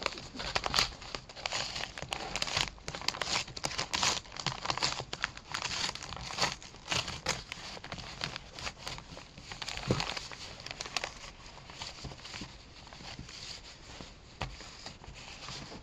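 Brown padded paper mailer envelope being torn open and handled, the paper crinkling and tearing in irregular rustles. The rustling is busiest over the first ten seconds or so and thins out later.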